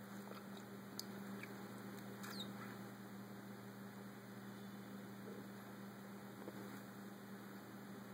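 Quiet room tone: a steady low electrical hum over faint hiss, with a few faint ticks and a brief high chirp about two seconds in.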